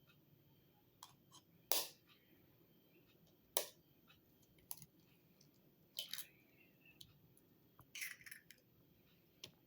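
Scattered short clicks and scrapes of kitchen utensils and food being handled, about seven in all with pauses of a second or two between them.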